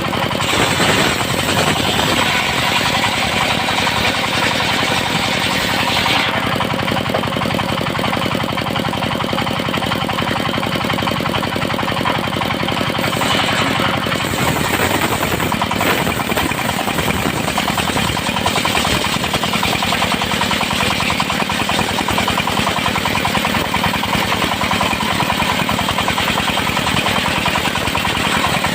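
A diesel-powered circular sawmill runs with a fast, steady pulsing beat. Its blade cuts teak boards, and the sound turns brighter and hissier in two stretches, one near the start and one around the middle.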